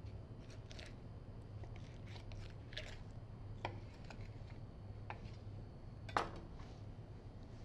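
Faint scattered clicks and short crackles of a boning knife cutting through raw chicken skin, flesh and the thigh joint, over a low steady hum, with one sharper knock about six seconds in.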